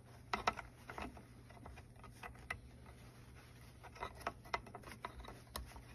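Faint handling noise: light rubbing and scattered small clicks as a cable is fed through the aluminium case of a truck engine computer.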